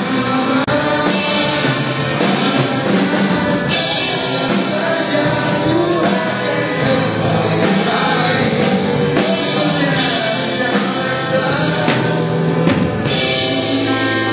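Live band playing a song with singing: vocals over electric guitars, keyboard and a drum kit.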